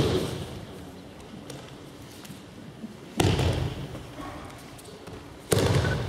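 Two heavy thuds of a person being thrown and landing in breakfalls on tatami mats, about two seconds apart, each fading over about a second in a large hall.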